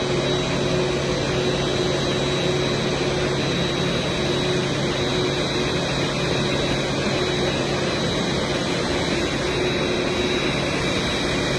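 Jet airliner engines running steadily: an even rushing noise with a thin high whine and a low hum.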